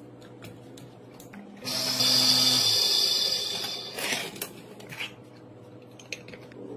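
A small electric motor whirs steadily for about a second, then winds down. A brief scraping rustle and a few light handling clicks follow.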